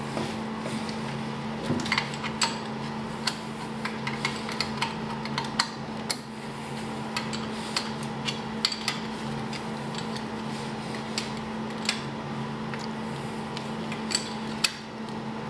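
Irregular metallic clinks and ticks of a 12 mm wrench working the stud nuts of a turbo intake manifold on a RZR 800 engine as they are tightened, over a steady low hum.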